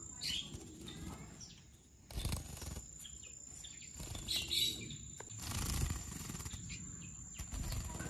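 A soaking-wet small songbird shaking and fluffing its feathers to throw off bathwater, giving a few short bursts of feather rustle and wing flutter, with a few soft chirps.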